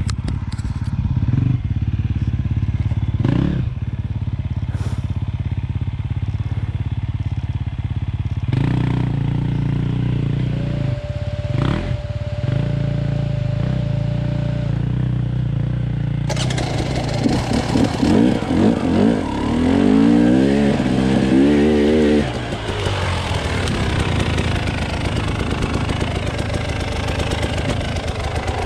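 Motorcycle engine running steadily during a ride, its pitch rising and falling for a few seconds past the middle. Rushing noise grows louder from a little over halfway through.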